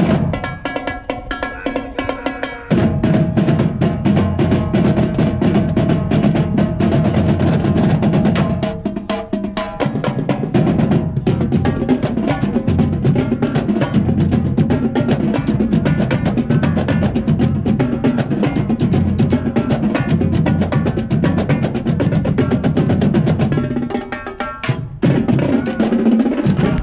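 Marching drumline playing a fast cadence on marching drums, dense rapid strokes. It starts lighter, comes in at full force about three seconds in, and eases briefly around nine seconds and again near the end.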